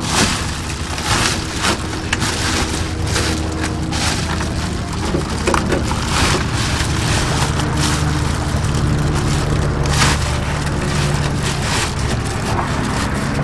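Reflective foil bubble-wrap insulation crinkling and crackling in irregular bursts as it is handled and pressed against the bare metal wall of a van, over a steady low hum.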